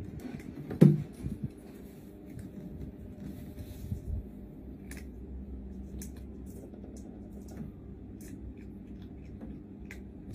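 A cat climbing onto a wire-shelf rack: one loud thump about a second in, then a softer knock and scattered light clicks over a low steady rumble.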